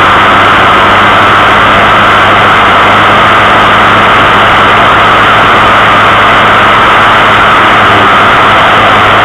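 Small vehicle's motor running at a steady speed while riding, under loud road and wind rush; an even low drone with no change in pitch.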